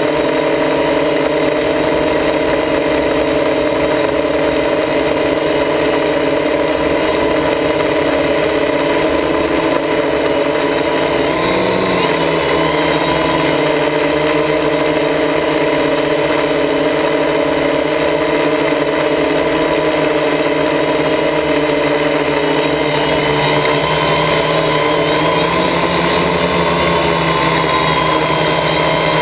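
A quadcopter's electric motors and propellers run with a steady hum of several tones, heard from the GoPro mounted on the craft. The pitch shifts briefly about twelve seconds in and again later as the motor speeds change.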